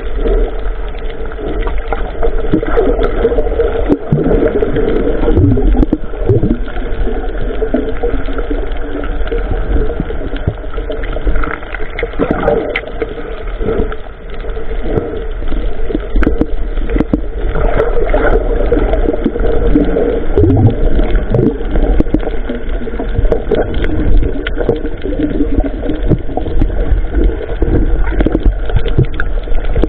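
A boat's motor running steadily, with water gurgling and scattered knocks.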